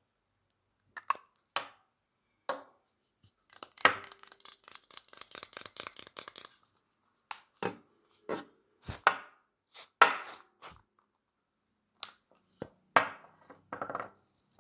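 Close-miked ASMR handling sounds: a series of sharp taps and clicks, with a run of rapid crackling from about four to seven seconds in.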